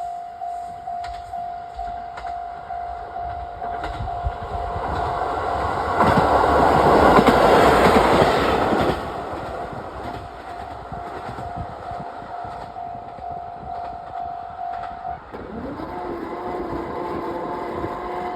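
Level-crossing alarm dinging at just under two strokes a second while a JR Hokkaido KiHa 40 diesel railcar passes over the crossing. The train builds from about four seconds in and is loudest from six to nine seconds. The alarm stops about fifteen seconds in, once the train has cleared.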